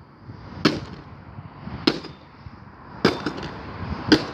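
A coffee maker being struck hard over and over: four sharp smashing hits a little over a second apart, with a couple of lighter knocks after the third.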